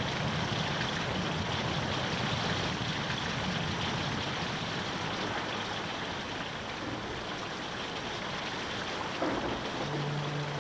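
Steady rushing hiss of water, even and unbroken. Low sustained music tones come in near the end.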